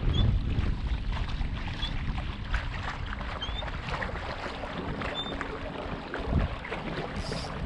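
Wind buffeting the microphone over water lapping against a kayak hull, the wind rumble loudest in the first second and then steadier.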